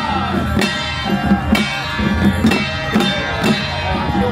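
Loud music with a steady drum beat and a melody over it.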